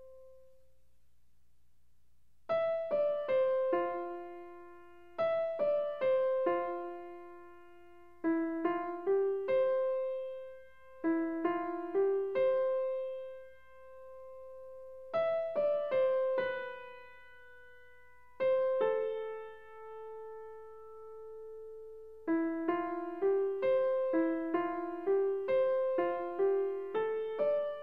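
Background music: a gentle piano melody played in short phrases of struck, decaying notes with brief pauses between them.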